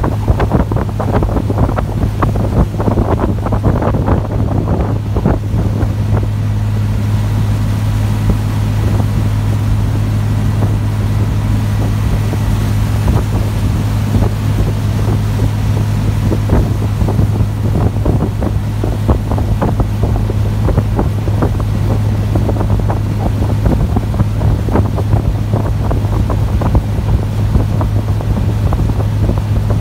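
An abra's diesel engine running with a steady low drone as the boat cruises, with water rushing along the hull and wind buffeting the microphone.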